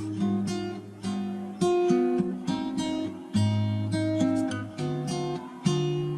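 Background music: an acoustic guitar strumming chords, each struck sharply and left to ring, with picked notes between.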